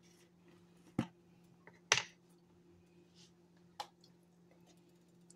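Three sharp clicks and taps as kitchen containers are handled, the loudest about two seconds in, over a steady low hum.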